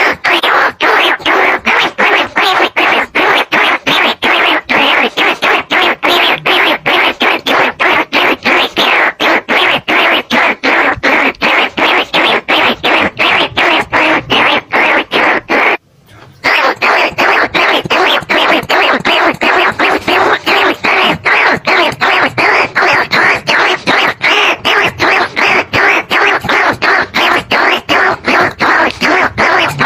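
Rat-lure call for bandicoot rats and rice-field rats: a dense run of rapid, evenly repeated squeaks that cuts out briefly a little past halfway, then carries on.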